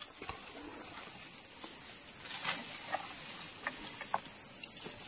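A steady, high-pitched insect drone, with a few faint light knocks and rustles scattered through it.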